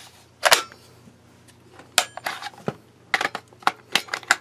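Sharp hard-plastic clicks and knocks as a Black & Decker LDX120C drill's 20 V lithium battery pack is handled against the drill body and slid off and on. One click comes about half a second in, a few more around two seconds, then a quick run of clicks near the end.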